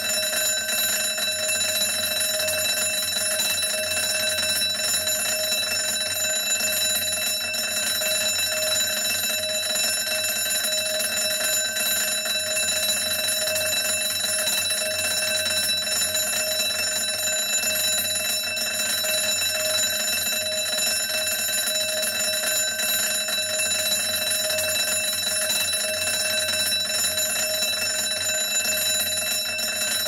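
Electric burglar-alarm bell ringing continuously at a steady level, with no pauses.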